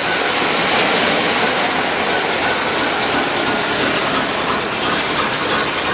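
Dump truck's carbureted gasoline engine running steadily as it warms up after a cold start on its electric choke, with a dense, rapid mechanical clatter.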